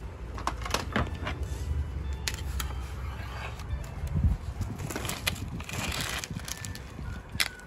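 Plastic shrink-wrap on a wooden game board crinkling and crackling as it is slit with a small cutter and handled, with scattered clicks and light knocks against the frame.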